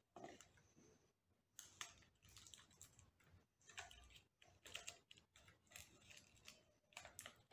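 Faint, scattered crinkling and clicking of a rolled paper tube being folded shut at one end and taped by hand.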